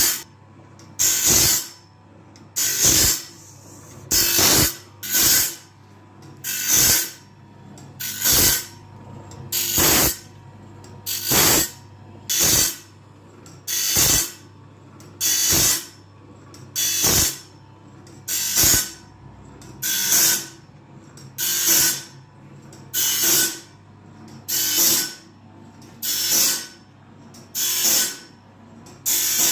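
Sawmill band-blade sharpener running automatically: its grinding wheel gives a hissing grind on each tooth in turn, about one tooth every second and a half, with the motor humming steadily in between.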